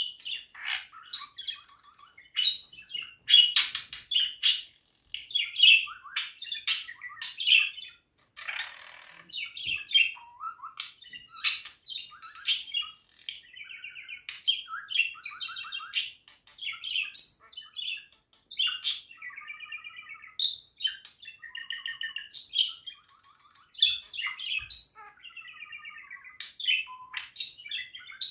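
Budgerigar warbling: a fast, unbroken stream of chirps, clicks and short buzzy whistles.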